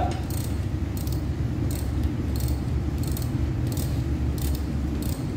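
Regular metallic scraping strokes, about one every 0.7 seconds, over a steady low hum.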